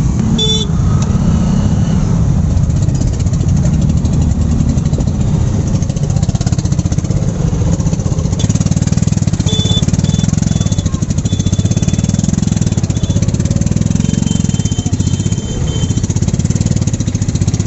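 Motorcycle engines running and idling close by in a traffic jam, with a few short high horn beeps in the second half.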